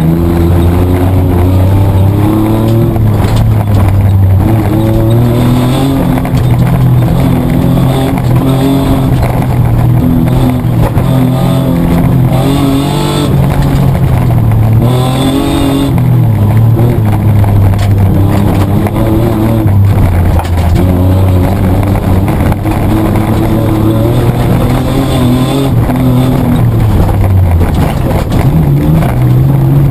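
Mitsubishi Triton's petrol engine heard from inside the cab, running hard under race load. Its pitch holds for stretches and then shifts up and down with gear changes and throttle, with a quick rise and fall about halfway through.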